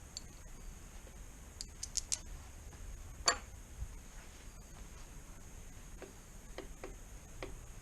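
Scattered light clicks and taps of tools and metal engine parts being handled, with the sharpest click about three seconds in and a run of lighter ticks near the end.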